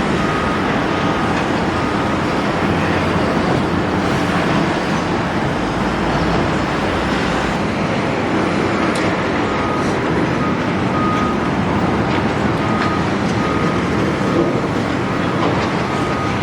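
Steady, loud working din of a large Doosan excavator demolishing a building: engine noise mixed with rattling and clattering. A faint short beep repeats through it, in broken runs.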